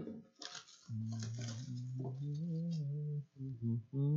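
Plastic wrapping torn and rustled off a sealed box of trading cards. Underneath, a low humming tone shifts pitch a few times.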